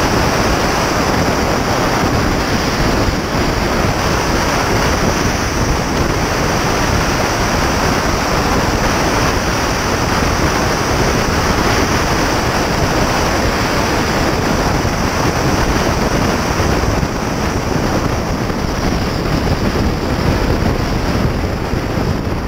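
Steady rush of wind buffeting the microphone of a camera riding on a Porsche Cayman S at highway speed, around 65 mph, mixed with tyre and road noise. No distinct engine note stands out.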